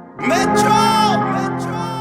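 Background music: sustained held chords with a melody line that slides up and down, coming back in after a brief break at the start.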